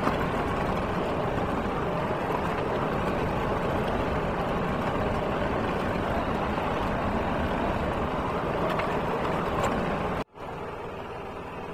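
John Deere 5050E tractor's three-cylinder diesel engine running steadily under load, pulling a cultivator through the field in first gear. About ten seconds in the sound cuts off abruptly and a quieter stretch of the same steady running follows.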